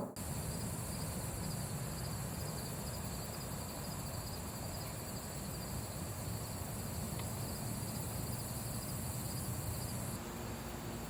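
Steady outdoor background noise with a faint, even insect chirring high in pitch.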